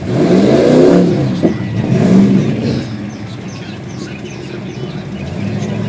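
Lifted pickup truck's engine revving hard in repeated surges as it churns through a mud bog pit, then easing to a lower, steadier run before picking up again near the end.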